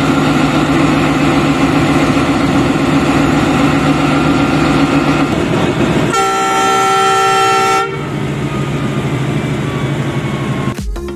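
Diesel-electric locomotive's engine running steadily at standstill, then one horn blast of nearly two seconds about six seconds in, after which the engine drone carries on. Music starts right at the end.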